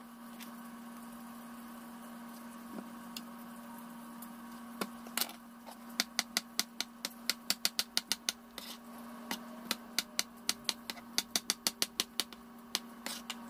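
Chef's knife cutting avocado and tapping on a plastic cutting board: a few single taps, then a quick run of taps, about four a second, through the second half. A steady low hum lies underneath.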